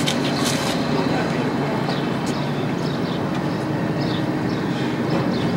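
A steady, even engine drone, like machinery running.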